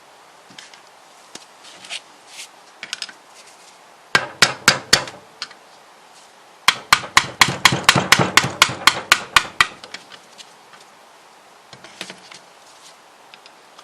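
Hammer knocks on a seized thermostat in a Classic Mini cylinder head, to free it. First a short group of about five sharp blows, then a quicker run of about fifteen blows at roughly five a second.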